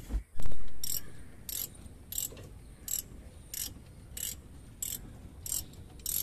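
Ratchet spanner clicking in short bursts, about one every two-thirds of a second, as it is worked back and forth on a 13 mm brake master cylinder mounting nut. A loud thump comes about half a second in.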